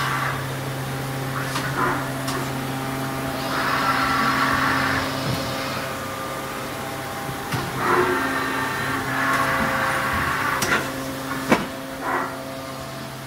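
Hitachi Seiki HS 500 horizontal machining center running: a steady low machine hum, with two spells of louder hissing a few seconds long and several sharp clicks, the loudest click near the end.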